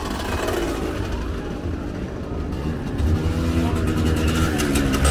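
Dnepr motorcycle's flat-twin engine running, getting louder about three seconds in.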